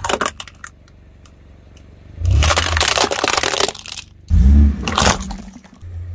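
Plastic toy concrete mixer truck cracking and splintering under a car tyre: a long run of crunching, snapping plastic with a low thud under it, then a second, shorter burst of cracking.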